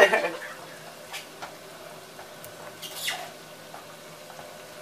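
Whisk stirring milk and a stick of butter in a non-stick saucepan: faint scrapes and light taps, with one short squeak about three seconds in.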